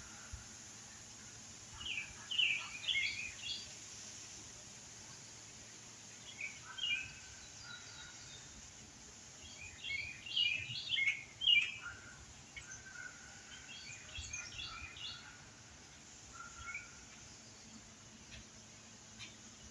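Songbirds chirping in several short bursts of quick high notes, with a few held whistled notes, over a steady background hiss; the busiest burst comes about halfway through.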